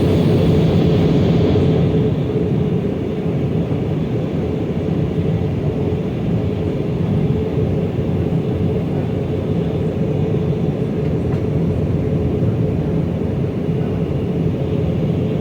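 Steady cabin drone inside an Airbus A319: engine and airflow rumble with a constant hum, a little louder and hissier for the first couple of seconds before settling.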